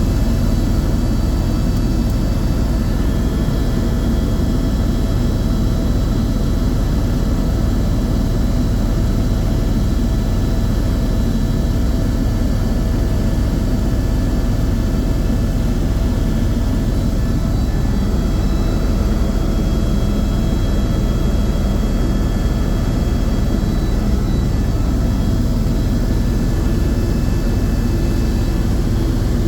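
Helicopter in flight: a steady, loud drone of rotor and turbine engine, with faint constant whine tones over it.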